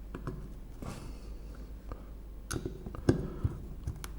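Light clicks and knocks of small wooden parts being handled and fitted together, with a cluster of sharper knocks in the second half, the loudest about three seconds in.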